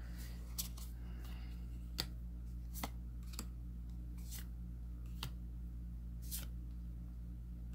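Trading cards sliding against each other as they are flipped one by one through a stack of Magic: The Gathering cards: about seven short flicks, roughly one a second, over a steady low hum.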